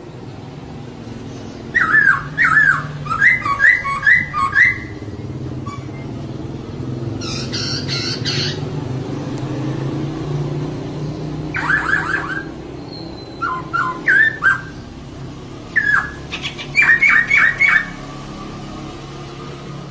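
Female poksay (laughingthrush) calling in short groups of rapid repeated notes, four groups in all, with one harsher, rasping burst about seven seconds in. A steady low hum runs underneath.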